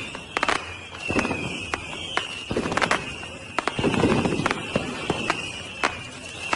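Fireworks going off: a rapid string of sharp bangs and crackles over low rumbling booms, with a high whistling tone running through.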